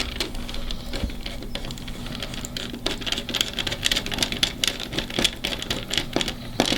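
Screwdriver tightening a small terminal screw down on a looped wire, making a quick, irregular run of small clicks and ticks.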